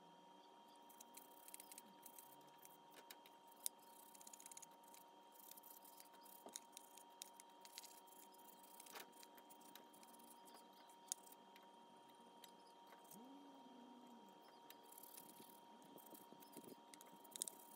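Faint scrubbing of a scooter carburettor body with a stiff nylon brush, the bristles scratching over the wet aluminium casting in short strokes, with scattered light clicks and taps as the part is turned in the hands. A faint steady whine sits underneath.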